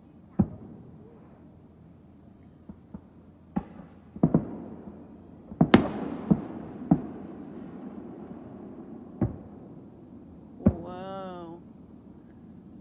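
Fireworks going off: a string of booms and cracks at uneven intervals, the loudest a little before halfway, followed by a rumbling tail.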